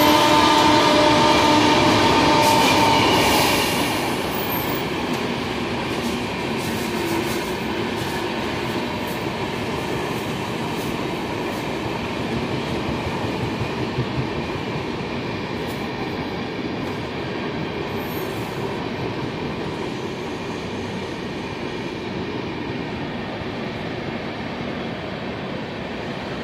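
Electric locomotive's horn sounding for the first three seconds or so, then the steady running noise of passenger coaches rolling past on the rails at speed, slowly growing quieter.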